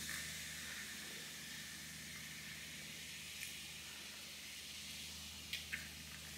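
Ginger beer poured slowly from a can over ice, fizzing with a soft steady hiss, with a few faint ticks, two close together near the end.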